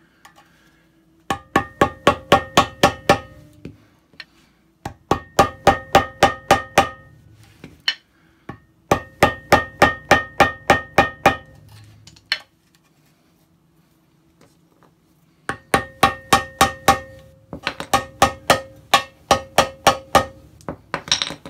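Rapid metal-on-metal tapping in five bursts of about eight to ten ringing strikes each, roughly five a second, as a screwdriver is driven against the old lower shaft seal inside the shaft tube of a Kenmore top-load washer to knock the stubborn seal loose.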